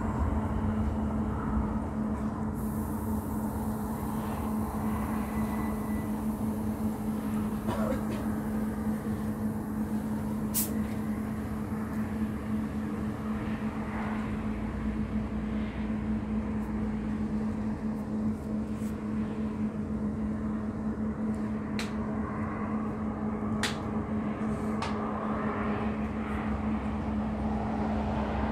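A steady mechanical hum, one constant droning tone over a low, even rumble, with a few faint sharp ticks.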